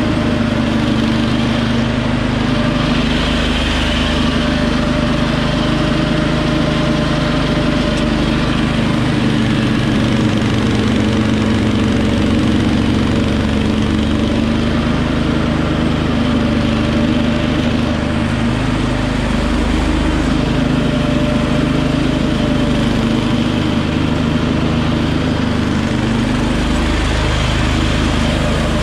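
Wheel Horse 310-8 garden tractor's single-cylinder engine running steadily under load as it drives a front-mounted snowblower through heavy snow. The engine tone holds even throughout, with only slight shifts in the low rumble.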